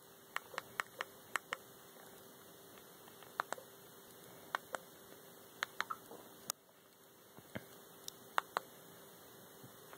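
Remote-control buttons clicking as they are pressed, about a dozen sharp clicks in quick runs of two to five, over a faint steady electrical hum.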